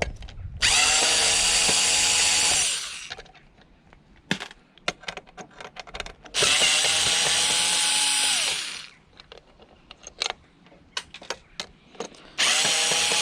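Cordless drill/driver backing out screws in three runs of about two seconds each, the motor pitch steady and then dropping as the trigger is released. Small clicks and knocks between the runs as screws and parts are handled.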